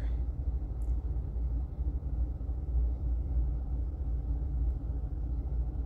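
Low steady rumble.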